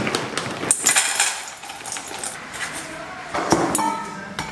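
Dry dog kibble poured from a crinkly foil bag into a stainless steel bowl, the pellets rattling against the metal. The pouring is loudest in the first second or so, and the bowl and bag clatter again near the end as they are handled.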